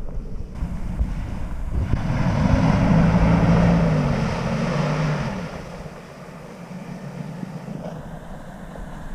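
Jeep Grand Cherokee's engine heard from a distance as it drives across snow: the note rises about two seconds in, holds under load for a few seconds, then falls away. Wind on the microphone throughout.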